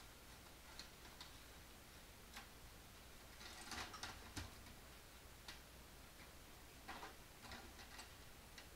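Faint, irregular clicks and crinkles of a clear plastic packaging tray being handled, with a short flurry about halfway through and a few more near the end.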